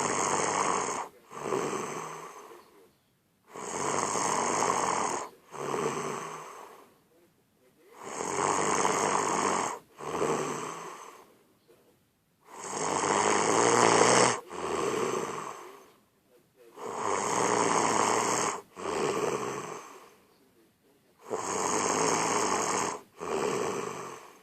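Loud snoring in a slow, regular rhythm, about six breaths, one every four seconds or so. Each breath is a long snore followed at once by a shorter one, with a second of quiet before the next.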